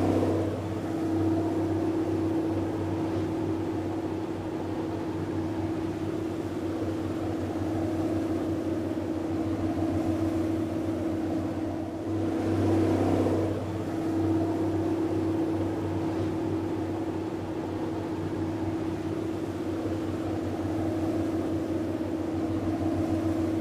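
Sightseeing boat's engine running steadily at cruising speed: a low, even drone with a constant hum. It swells briefly, with more hiss, about halfway through.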